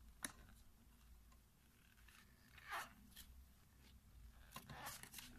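A small paper booklet being opened and its pages turned by hands in cotton gloves: a brief sharp tick shortly after the start, then soft paper rustles around three seconds in and again near the end.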